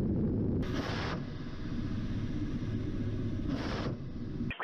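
Attack helicopter's engines and rotor, a dense low rumble, broken twice by short, louder half-second bursts of weapons fire about three seconds apart, then cutting off suddenly near the end.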